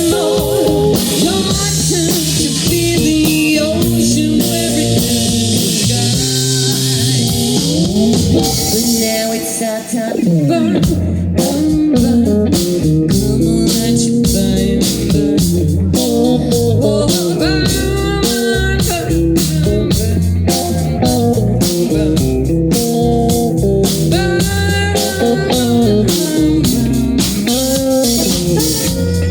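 Live blues band playing, electric guitar to the fore over drums and bass. Cymbals wash for the first third, then the drums settle into a steady beat under the guitar lines.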